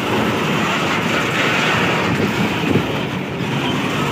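Coal hopper wagons of a freight train rolling past close by: a steady rumble of steel wheels on the rails with rattling from the bogies and scattered knocks over the rail joints.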